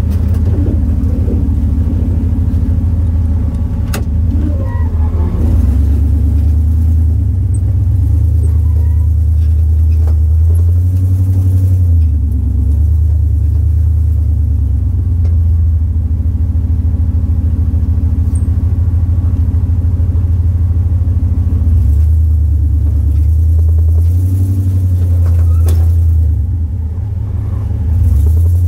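Off-road vehicle engine running at low revs under load as it crawls up a rock climb, its note rising and falling a little as the throttle is worked, with an occasional sharp knock.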